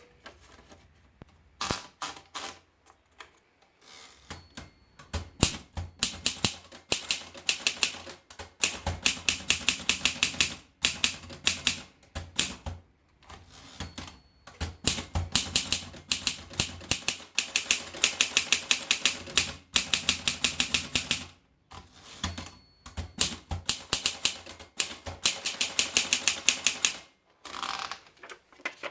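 Continental W34 manual typewriter being typed on: fast runs of sharp key strikes separated by short pauses and single strokes, with a brief ringing tone three times between runs.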